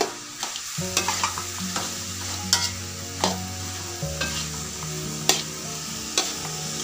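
Metal spoon stirring fried tempeh and anchovies in a sizzling sweet soy sauce in an aluminium wok. Irregular sharp clinks and scrapes of metal on the pan sound over a steady frying sizzle.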